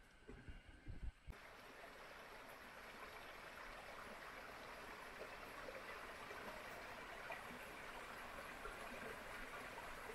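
Small rocky creek trickling and babbling over stones, a faint steady water sound that comes in about a second in, after a few low knocks.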